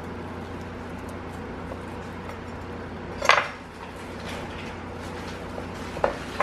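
A kitchen knife set down on a bamboo cutting board with a short clatter about three seconds in, and another light knock near the end, over a steady low hum.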